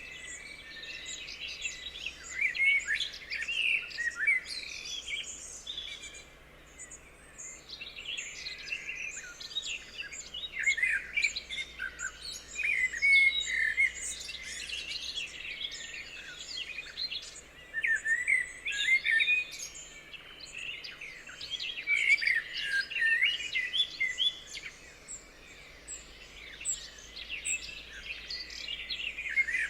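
Several songbirds singing and chirping together in a forest chorus, quick overlapping high notes that swell and fade every few seconds.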